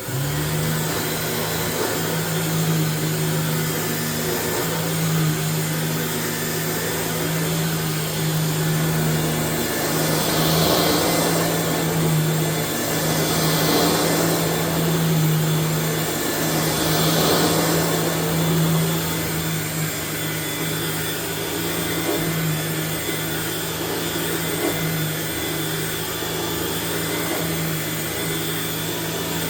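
1994 Dirt Devil Broom Vac model 712 stick vacuum running steadily, its motor giving a constant hum under a rushing hiss of air. The hiss swells three times midway through.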